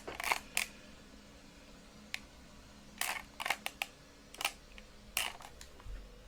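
Small plastic buttons being pressed by hand: about ten short, sharp clicks at an uneven pace, some in quick pairs, as settings are stepped through on a handheld gadget.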